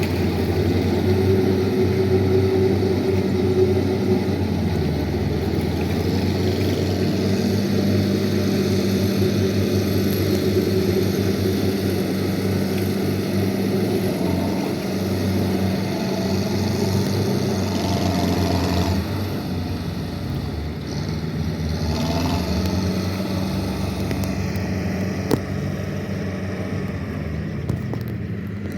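Rice-field tractor's diesel engine running steadily, its pitch shifting a little now and then, with one short sharp click about 25 seconds in.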